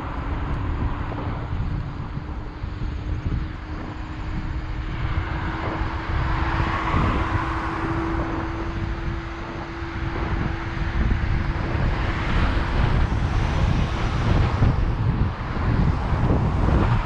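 Wind buffeting the microphone of a camera riding along on an electric scooter by a road. A steady hum runs underneath and stops about fourteen seconds in, and a car swells past around the middle.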